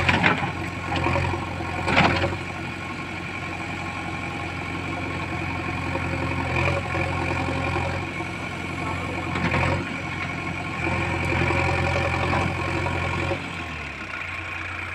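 JCB backhoe loader's diesel engine running steadily, with a few sharp knocks and clanks, then dropping to a lower, quieter note near the end.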